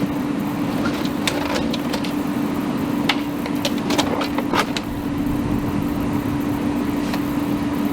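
A fire engine idling with a steady hum, with scattered sharp cracks and knocks over the first few seconds.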